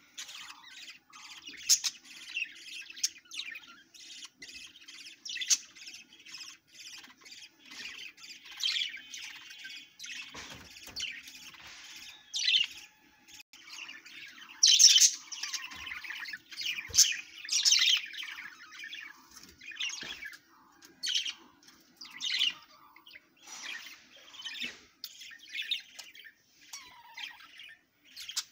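Budgerigars chirping and chattering in a quick, irregular stream of short, sharp calls and squawks, over a faint steady low hum.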